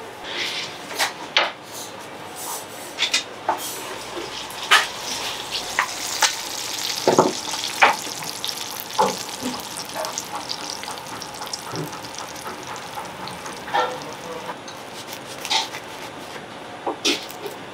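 Kitchen handling sounds: many short, sharp taps, clicks and crackles over a light steady hiss as baked flatbread and a metal pan are set down and handled on a stone counter; near the end a large knife cuts through the crusty flatbread on a wooden board.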